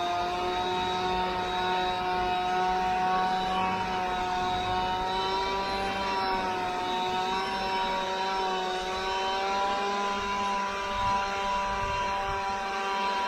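Leaf blower running steadily, blowing loose jointing sand across freshly re-sanded block paving. It makes a high whine over a rushing blast of air, wavering slightly in pitch.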